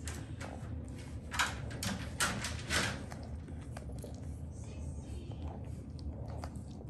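Newborn merle French bulldog puppies nursing: short bursts of snuffling and suckling noises, several in quick succession in the first half, over a steady low hum.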